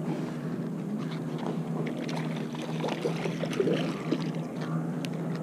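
A steady low motor drone with a constant pitch.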